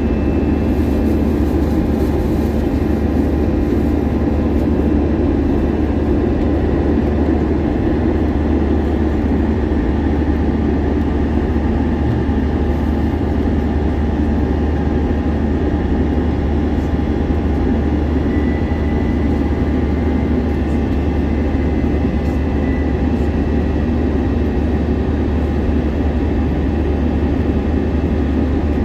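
Steady roar inside the cabin of an Airbus A321-200 airliner: engine and airflow noise, deep and unchanging, with a faint high whine.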